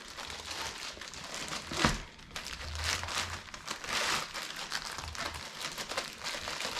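Packaging bag crinkling and rustling as a canvas tote is stuffed back into it, with a sharp knock about two seconds in.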